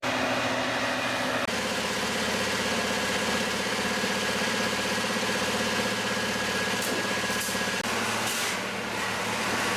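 Heavy diesel engine of a race truck idling steadily, with a few short hisses near the end.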